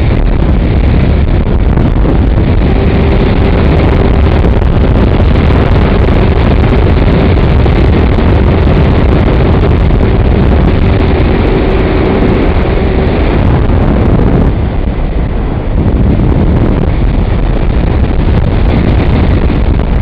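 Loud wind rush buffeting the microphone of a camera on the wing of a Multiplex Blizzard RC plane in fast flight, with a steady hum from its motor and propeller through the middle. About two-thirds of the way through the hum is gone and the rush dips briefly.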